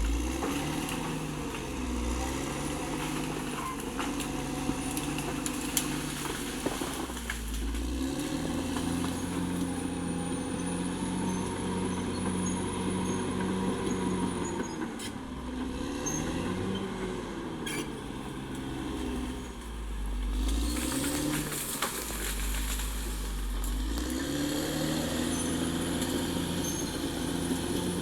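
Caterpillar D6R XL bulldozer's diesel engine working hard, its pitch repeatedly rising and falling every few seconds as it loads and eases off, with occasional sharp clanks.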